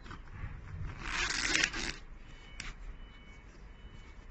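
Cloth rustling and rubbing as a hand handles a stitched fabric sample, loudest from about one to two seconds in, followed by a single short click.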